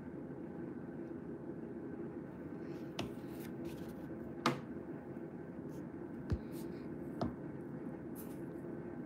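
Quiet room tone: a steady low hum and hiss, broken by four short, soft clicks spread over the middle of the stretch.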